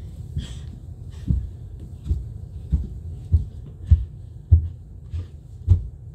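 Dull, evenly spaced thumps of hands and bare feet landing on carpeted stair treads as a child crawls up a staircase, about nine thumps at a bit under two a second.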